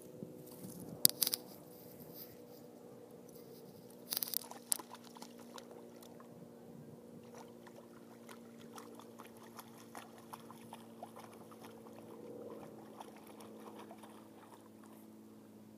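Small dog wading and swimming in a pond: light splashing and patter of water as it paddles, with a few sharp clinks and rustles about one second and four seconds in. A faint steady hum lies underneath.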